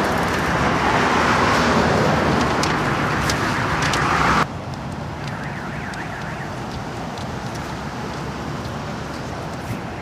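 Steady street noise with traffic, loud for the first four seconds or so, then cutting off suddenly to a quieter outdoor background.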